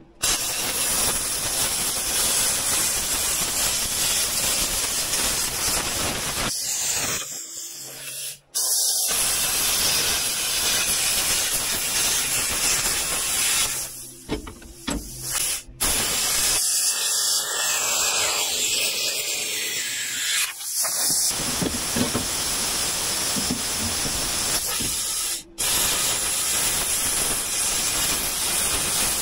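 Plasma cutter cutting through the steel bed of a wrecker, a loud steady hiss that stops and restarts a few times as the torch moves between cuts.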